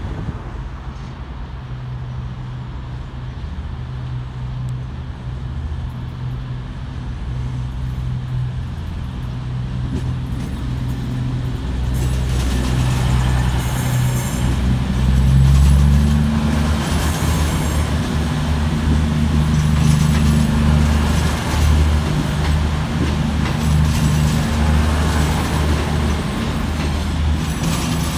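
Diesel train engine running at the platform, growing steadily louder, its low engine note stepping up in pitch about halfway through.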